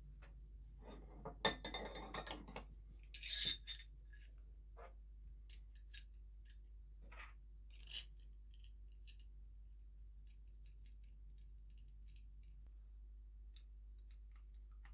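Light metallic clinks and clatter, a cluster of them about one to four seconds in, then a few scattered light taps.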